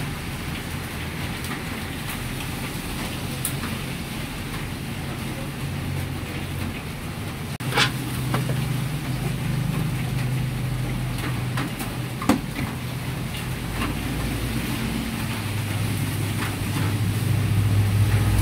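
Steady low rumble of a gas wok burner running, with a few sharp kitchen clatters, the loudest about 8 and 12 seconds in.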